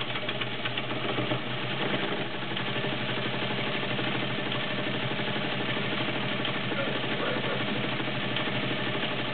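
Domestic 1465 all-metal sewing machine running steadily at sewing speed while stitching a built-in decorative pattern. Its motor hums under a fast, even ticking of the needle.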